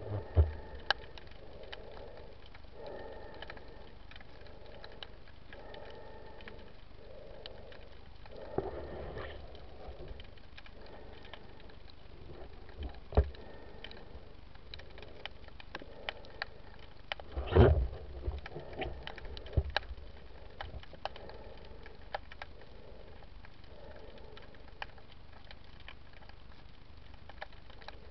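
Underwater sound heard through a camera housing: a faint steady hiss with many scattered sharp clicks and a few loud knocks, the loudest about two-thirds of the way in, and soft muffled thuds about once a second during the first half.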